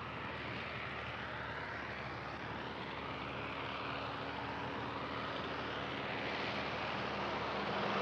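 Ford 7710 tractor's diesel engine running steadily under load while ploughing, a continuous drone that grows gradually louder.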